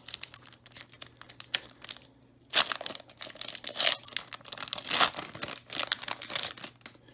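Foil trading-card pack wrapper being torn open and crinkled by hand, in crackling bursts with a brief pause about two seconds in.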